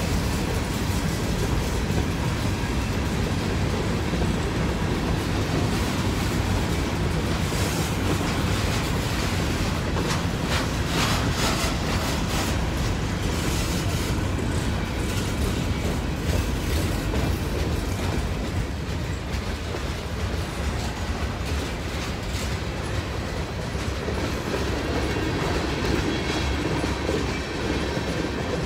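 Freight cars of a CSX local train rolling past: covered hoppers, then a tank car and autoracks. Steel wheels rumble steadily on the rail, with clickety-clack over the rail joints, a little quieter in the last third.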